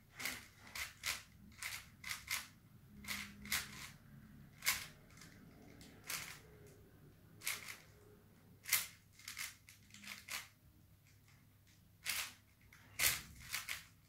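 Plastic 5x5 Rubik's cube being turned by hand: sharp clicks and clacks as its layers snap round, in irregular runs of a few turns with short pauses between.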